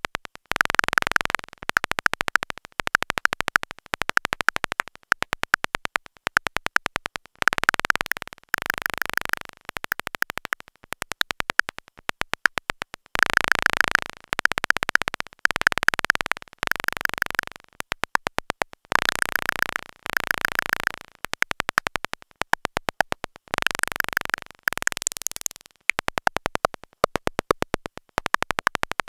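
Eurorack modular synthesizer making trainlets: short bursts of rapid clicks, about one a second, each an impulse stream from a Make Noise XPO sub-oscillator shaped by a cycling Maths envelope and sent through two high-pass filters. The click rate changes with every burst, and the filter tone shifts under random modulation.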